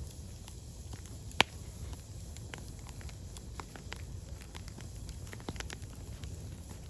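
Firewood burning in a fire, crackling with scattered sharp pops and one loud pop about a second and a half in, over a low steady rumble.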